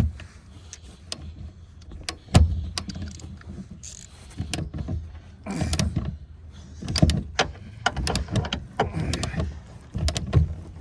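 Hand tools clicking and clanking on tight seat-mounting bolts in a truck cab: irregular sharp clicks in clusters, with one louder knock about two seconds in.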